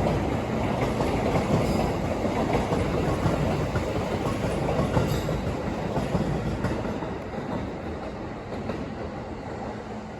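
E2 series Shinkansen passing at speed without stopping: a steady rush of wheels on rail and moving air, fading away over the last few seconds.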